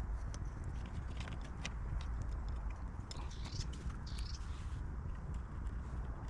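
Scattered light clicks and taps with a couple of short scrapes, from hand tools refitting the brake on a Brompton folding bike, over a steady low rumble.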